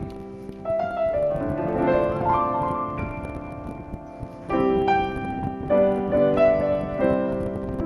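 Piano music: phrases of struck notes that ring on, with a new run of louder chords starting about halfway through.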